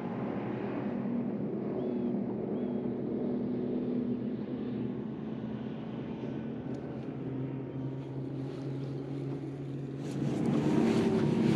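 Steady drone of a boat motor, a low even hum, which gets louder about ten seconds in.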